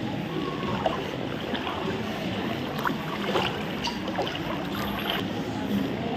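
Floodwater sloshing and lapping as someone wades through deep water in a flooded street, with a few sharper splashes.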